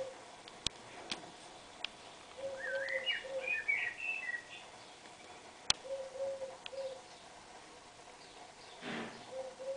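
A dove cooing in short phrases of about three low notes, three times, with a burst of quick high songbird chirps about two and a half seconds in. A few sharp clicks, the loudest a little before six seconds, and a brief swish near the end.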